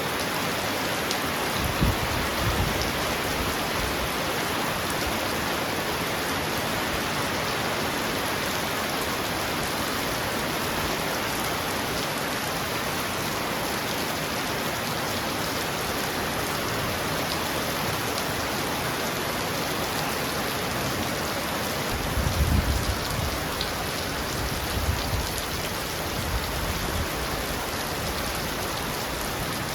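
Heavy rain pounding on a roof: a steady, dense hiss. Low rumbles come in briefly about two seconds in and again for several seconds about three-quarters of the way through.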